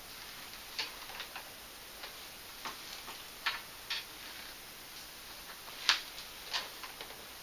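Small plastic LEGO pieces clicking and tapping as they are handled and snapped together on a wooden tray table: a dozen or so irregular sharp clicks, the loudest about six seconds in.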